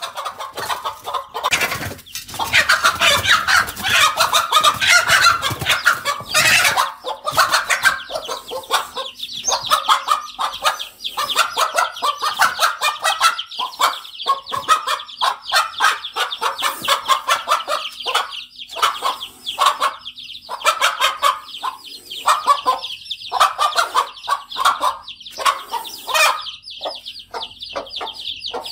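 A hen giving rapid, agitated alarm clucks and cackles at a cobra, loudest in the first seven seconds and then continuing in quick repeated bursts. A steady high peeping of chicks runs under it from about nine seconds on.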